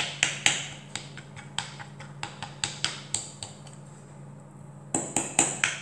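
Fork pricking an unbaked pastry base in a pie dish: a run of sharp, irregular clicks, several a second, pausing for about a second and a half near the end before a last quick run.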